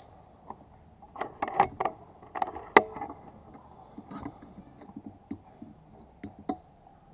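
Handling noise from an NHX Reborn air rifle between shots: a scatter of short clicks and knocks. They come thickest from about one to three seconds in, with one sharp click the loudest, then lighter clicks to near the end.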